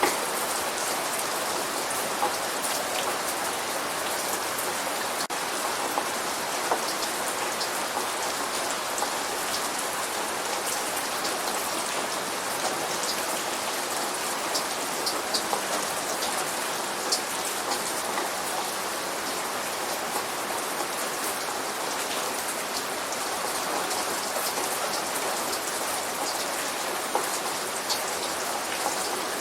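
Steady light rain falling: an even hiss with scattered individual drops ticking close by.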